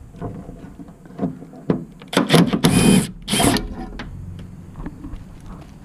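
DeWalt Atomic half-inch cordless impact wrench hammering on an inner-fender bolt. It gives a few short blips, then three longer rattling bursts about two to three and a half seconds in, working the bolt loose.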